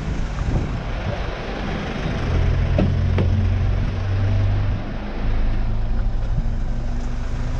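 Fire-rescue vehicle's engine idling with a steady low hum, getting louder and fuller about two seconds in as the cab is entered. Two short sharp knocks come close together about three seconds in.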